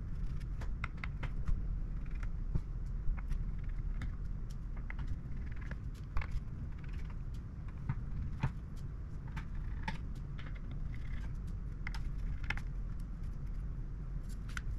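Irregular small clicks and taps, a few a second, of a screwdriver and small metal parts being handled as a graphics card is taken apart, over a steady low hum.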